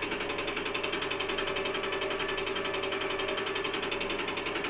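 Kobelco common rail diesel injector ticking rapidly and evenly as it is fired on a test bench for a spray test, over a steady hum from the bench. The injector has just been calibrated and shows no return leak.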